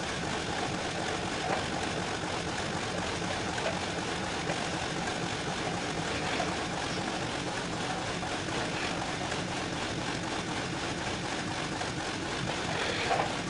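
Steady, even hiss and running noise of a Dairymaster swing-over milking parlour's milking equipment at work.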